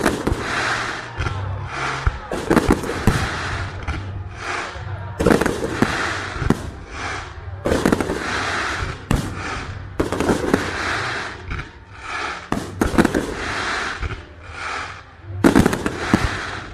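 Aerial fireworks exploding one after another, about a dozen sharp bangs roughly a second or so apart, each trailed by a hissing tail as the shell's stars burn out.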